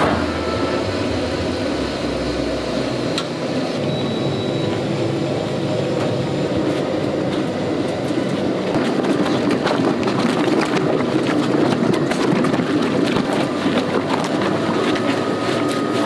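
Large stainless-steel feed mixer running, its paddles churning fish-meal eel feed as water is worked in to make a wet dough, a steady mechanical churning that grows a little louder and busier about nine seconds in.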